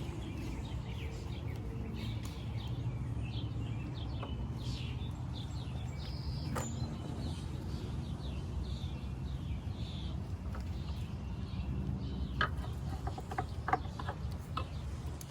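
Birds chirping on and off over a steady low background rumble, with a few sharp clicks, more of them near the end.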